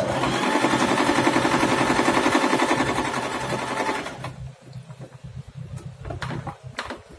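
Singer 3232 sewing machine running, sewing a straight stitch with a rapid, even stitching rhythm that stops about four seconds in. A few light clicks follow near the end.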